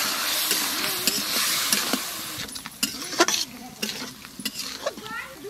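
Ground spices, onions and tomatoes sizzling in hot oil in a metal wok (karahi), loudest in the first two seconds and then dying down, while a metal spatula stirs and scrapes through them, clicking against the pan a few times in the second half.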